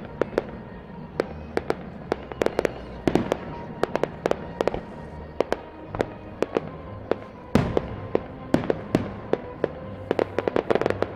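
Fireworks display: aerial shells bursting in a quick, irregular string of sharp bangs and crackles. A heavier boom comes about seven and a half seconds in, and a rapid cluster of reports near the end.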